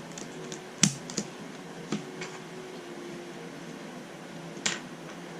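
Plastic Rubik's Cube pieces clicking as they are handled and snapped into place during reassembly: several sharp clicks in the first two seconds, the loudest about a second in, and another near the end, over a faint steady hum.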